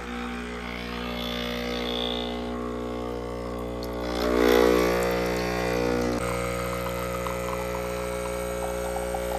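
Breville espresso machine's pump humming steadily while it pulls a double shot, with a louder swell about halfway through.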